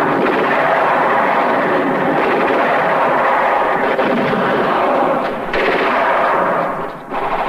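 Film battle sound effects: dense, continuous rifle and machine-gun fire, dipping briefly twice near the end.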